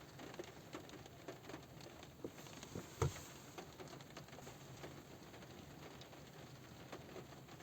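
Light rain pattering on a car roof: scattered drops tapping faintly, with one louder knock about three seconds in.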